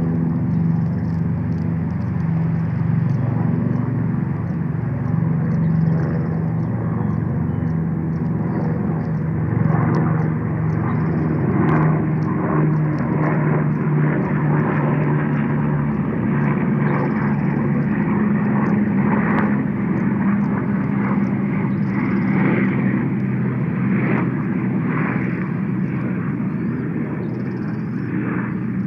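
Engine of a passing aircraft droning steadily, its pitch slowly shifting as it goes by.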